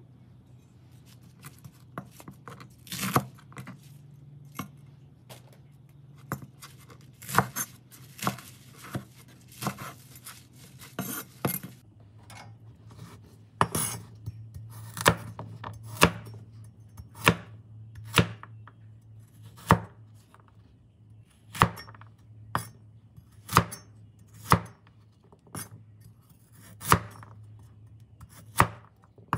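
Chinese cleaver chopping vegetables on a wooden cutting board, cutting carrots into chunks: a series of sharp knocks of the blade hitting the board, roughly one a second.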